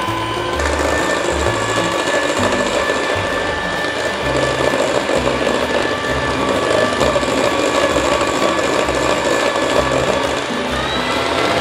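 Electric hand mixer running steadily, its beaters whipping thick mocha buttercream in a glass bowl. The motor gives a steady whine over a churning noise, and the whine steps up in pitch near the end.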